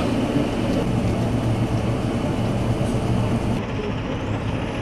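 Minibus engine running steadily, heard from inside the passenger cabin as a low hum. About three and a half seconds in, the sound changes to minibuses heard from outside.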